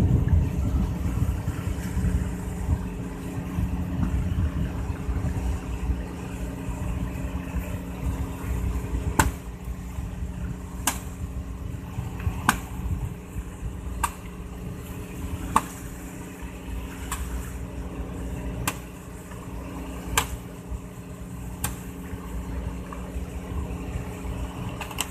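Fishing boat's inboard engine running steadily under way, with a low rumble and a steady hum. From about nine seconds in, sharp clicks come evenly, about one every second and a half.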